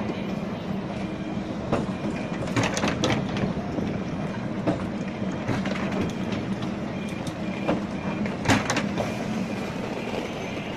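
Venice Translohr rubber-tyred guided tram passing close by at low speed: a steady electric hum with a few sharp clicks and knocks. The loudest knock comes about eight seconds in.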